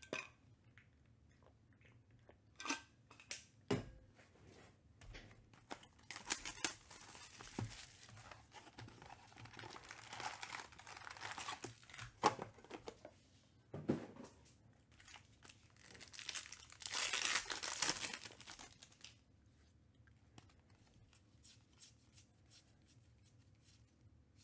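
Trading card pack wrappers being torn open and crinkled, with scattered clicks and taps of cards being handled. The tearing and crinkling come in two longer stretches, about six to twelve seconds in and again around seventeen seconds in.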